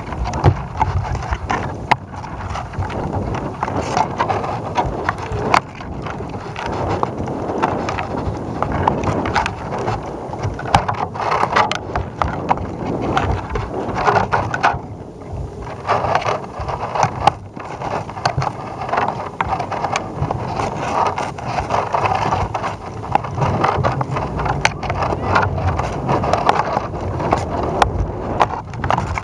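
Wind buffeting the microphone of a panoramic camera hung from a tethered balloon, with frequent clicks and knocks as the swinging payload rattles.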